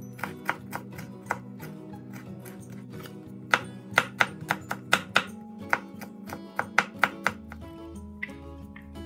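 Chef's knife chopping garlic on a bamboo cutting board: a run of sharp knocks of the blade on wood, a few early on and then a quick series in the middle that stops a couple of seconds before the end. Background acoustic guitar music plays throughout.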